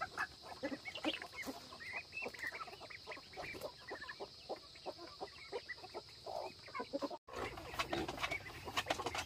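A flock of free-ranging chickens clucking, many short clucks in quick succession. The sound drops out for a moment about seven seconds in, then the clucking goes on.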